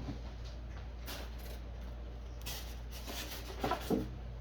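Light knocks and clatter from handling the Triton key machine as it is lifted, with two louder knocks close together near the end, over a steady low hum.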